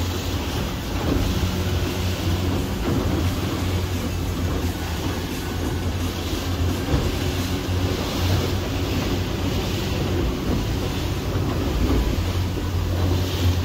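Boat engine running steadily as the boat moves slowly under way, a low, even drone, with water rushing along the hull.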